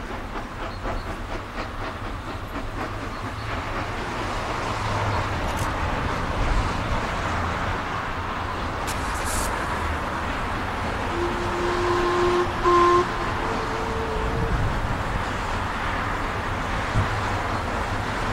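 Steam locomotive working toward the listener with a steady rumble and hiss. Its whistle sounds about eleven seconds in: a held note with a brief break, then a short higher note a second or so later.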